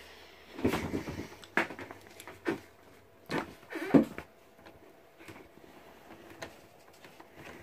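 A handful of thumps and knocks as objects are handled and set down on the table right by the microphone, about five of them in the first four seconds, the last one the loudest.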